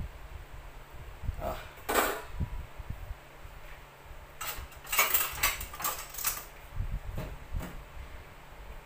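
Stainless steel pot lid lifted off the pan and set down on metal: a clank about two seconds in, then a run of clinks and rattles around five to six seconds.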